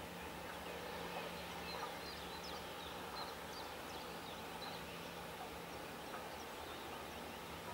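Small birds chirping and singing over a steady outdoor background hiss, with a faint steady low hum underneath.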